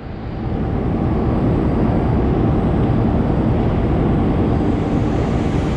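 Diesel train at a station platform, its engine running with a steady, loud, deep rumble and a faint hum.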